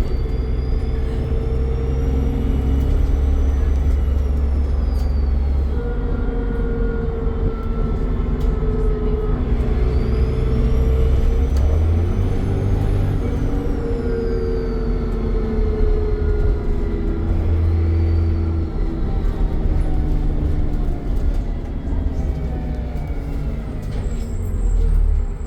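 Dennis Trident double-decker bus under way, its diesel engine running with the turbocharger whistling. The whistle climbs in pitch and then falls away twice over a steady low engine rumble.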